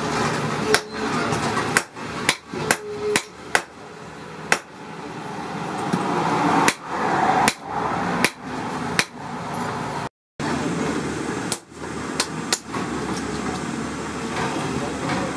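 Hand hammer striking a red-hot bar of car-axle steel on a steel anvil: a dozen or so ringing blows at an uneven pace, some in quick runs, over a steady background rush.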